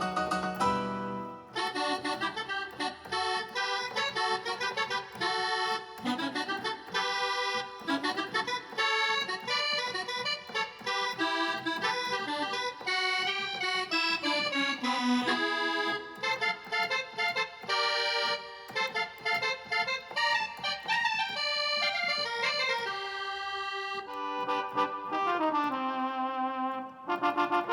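Korg N264 synthesizer keyboard playing an accordion sound: a busy melody of quick, short notes and chords, with a few notes sliding down in pitch.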